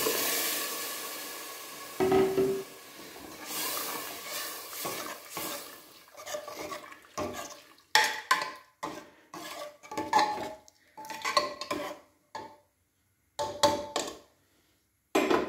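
Boiled kidney beans poured into hot gravy in an aluminium pressure cooker, with a hiss that fades over the first two seconds. Then a steel ladle stirring, clinking and scraping against the cooker's metal sides in short strokes with brief pauses.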